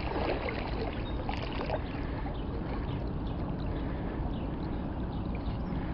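Steady wash of moving river water at the shallows, with a few faint ticks.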